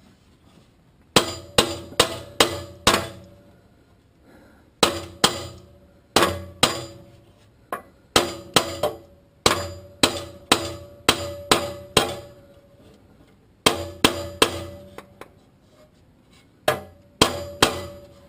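A hammer striking a steel exhaust pipe in quick runs of four to six blows with short pauses between, each blow leaving a metallic ring: the pipe is being driven into the extension pipe to seat it.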